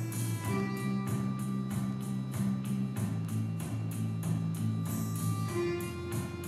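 Background music with held chords over a steady beat.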